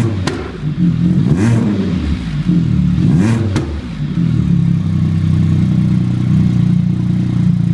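Can-Am Spyder RT's 1330 three-cylinder engine running through a stainless primary replacement pipe and a baffle-less Akrapovič muffler. It is blipped twice in the first few seconds, then settles to a steady, throaty idle.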